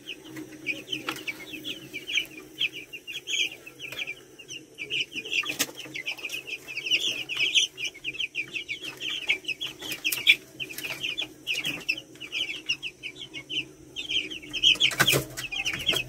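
A flock of young broiler chicks peeping continuously, many short high cheeps overlapping, with a few sharp clicks among them.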